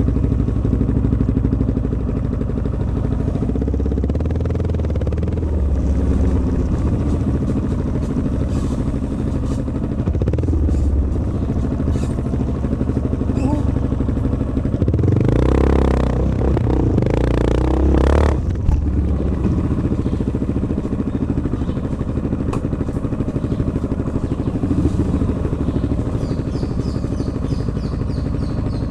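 Onboard sound of a 250 cc trail motorcycle running at low speed on a dirt trail, the engine rumbling steadily. A louder rush of noise and clatter comes from about fifteen to eighteen seconds in.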